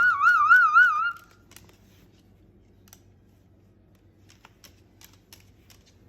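A warbling whistle whose pitch wobbles rapidly up and down, lasting about a second, followed by faint scattered clicks and taps.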